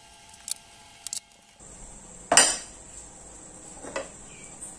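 Freshly buffed Yamaha RX100 engine side covers being handled and set down on a wooden table: several metallic knocks and clinks, the loudest about halfway through with a brief ring.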